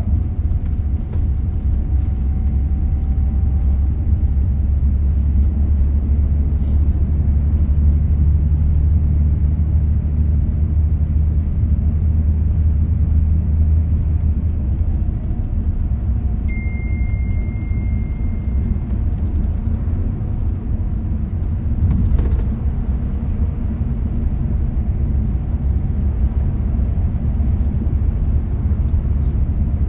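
Steady low rumble of a road vehicle on the move, with engine and tyre noise. A short high beep sounds about sixteen seconds in, and there is a single knock about twenty-two seconds in.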